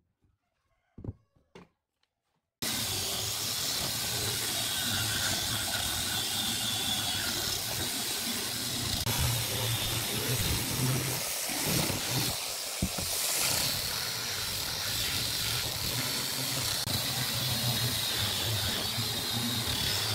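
A few light wooden knocks, then about two and a half seconds in an electric angle grinder with a sanding disc starts abruptly and runs steadily, a high whine over a loud hiss, as it sands the face of a cut-out wooden wheel.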